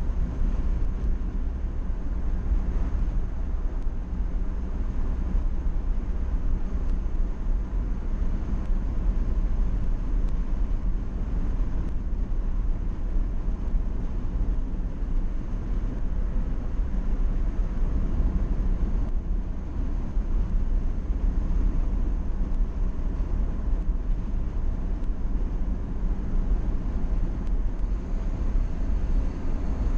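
Steady low rumble of a car driving on the road, heard from inside the cabin: engine and tyre noise, with no change in pace.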